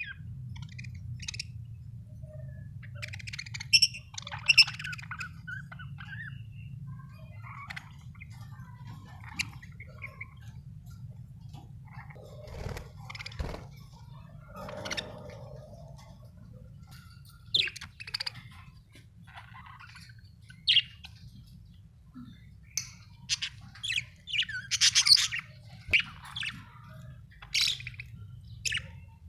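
Budgerigars chirping in short, irregular bursts, busiest a few seconds in and again toward the end, over a steady low hum.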